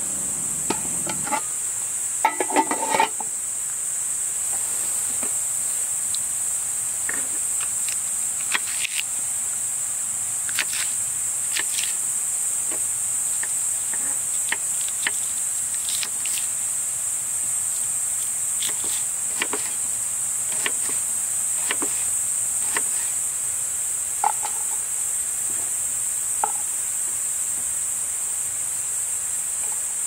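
Steady high-pitched chorus of insects in the forest, with scattered knocks and clicks over it, a short run of them about two seconds in.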